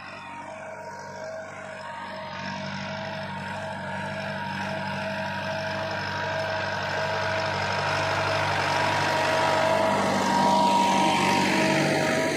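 Massey Ferguson 375 tractor's diesel engine running under load as it pulls a disc harrow through ploughed soil, growing steadily louder as it comes closer.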